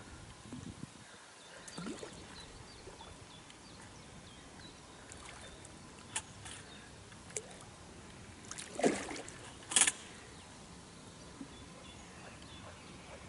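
A hooked fish splashing at the water's surface while being played on a fishing rod: a few brief splashes over a steady outdoor background, the loudest two close together about two-thirds of the way in.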